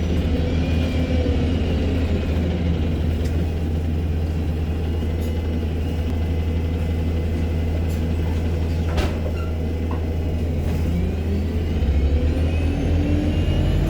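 ADL Enviro200 MMC bus's diesel engine and Voith automatic gearbox running with a steady low hum and a whine that falls in pitch over the first few seconds, then climbs again from about eleven seconds in as the bus pulls away. A high turbo whine rises near the end, and a single sharp click comes about nine seconds in.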